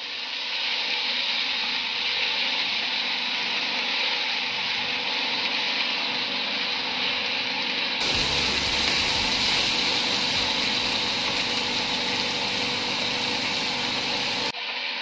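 Pork and shrimp paste sizzling steadily in a frying pan as a spatula stirs them. The sound turns brighter and fuller about eight seconds in and eases back shortly before the end.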